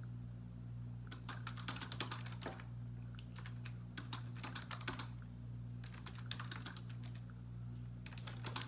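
Typing on a computer keyboard in several bursts of quick key clicks with short pauses between them, over a steady low hum.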